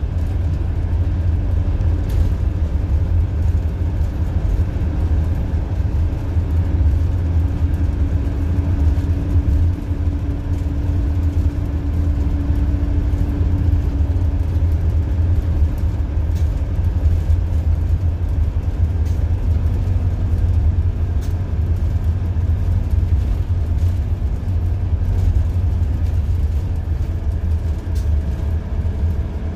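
Interior of a 2001 Orion V transit bus under way: its Detroit Diesel Series 50 EGR inline-four diesel engine runs with a steady low rumble. A faint whine holds for several seconds near the middle, and light clicks sound now and then.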